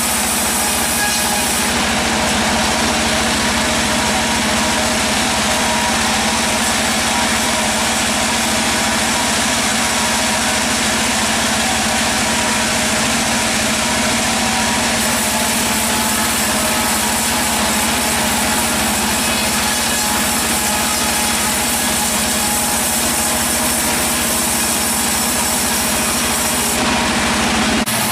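Sawmill machinery running steadily: a continuous engine-driven drone with a steady hum under it.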